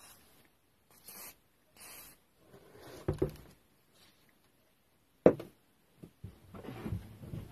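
Two short hisses of WD-40 aerosol spray, then workshop handling noises of tools and parts, with one sharp knock a little past five seconds in.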